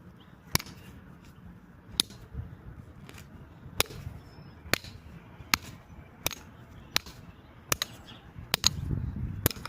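An axe repeatedly striking a steel padlock's shackle: about a dozen sharp strikes, roughly one a second, coming faster near the end.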